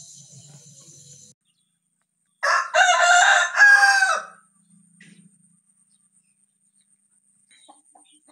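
A rooster crowing once, a loud cock-a-doodle-doo starting about two and a half seconds in and lasting about two seconds. Before it, a faint steady high-pitched chorus stops abruptly about a second in.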